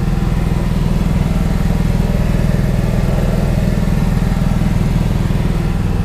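An engine idling steadily, a loud low drone with a fast, even throb.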